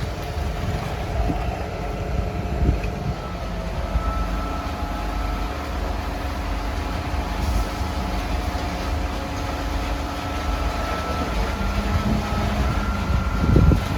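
Concrete truck's diesel engine running steadily, with a steady high whine over a low rumble; a thud near the end.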